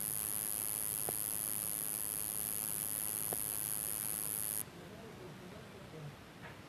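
Steady hiss with a high-pitched whine that cuts off suddenly about four and a half seconds in, leaving a fainter hiss. Two faint clicks sound before the cut-off.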